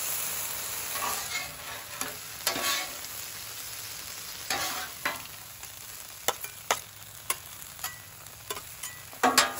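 Peas, carrots and onions sizzling on a hot flat-top griddle while two metal spatulas scrape and tap against the griddle top. The sharp clacks of the spatulas come more often in the second half, the loudest just before the end.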